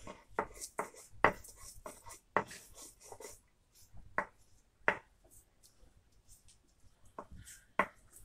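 Stone batta knocking and scraping on a silbatta grinding slab as roasted potatoes, garlic and spices are crushed and mixed. Irregular sharp knocks, about a dozen, with quieter rubbing between them.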